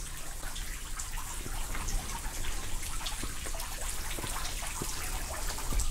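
Water dripping and trickling: a steady hiss scattered with many small irregular drips.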